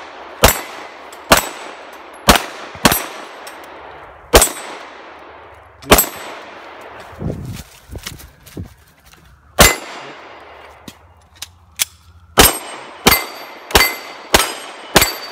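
Handgun shots at steel plate targets, many of them followed by the clang and ring of a struck steel plate. There are about a dozen shots: a string in the first six seconds, a pause of a few seconds while the shooter moves to a new position, then a quick string of five near the end.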